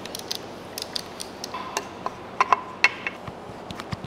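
Hand tools clicking and clinking on the metal of a BMW N20 engine during engine timing, with irregular light ticks throughout. A few louder metallic clanks, with a short ring after them, come a little past halfway.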